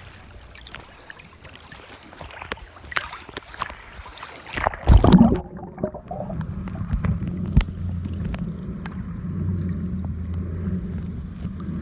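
A camera at the sea surface with water sloshing and splashing, then a loud splash about five seconds in as it goes under. After that comes a steady, muffled underwater hum with scattered clicks.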